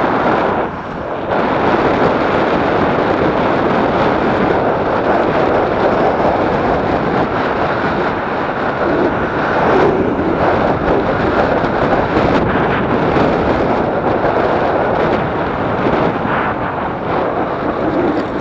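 Wind buffeting the microphone of a bicycle-mounted camera while riding: a loud, steady rushing that dips briefly about a second in.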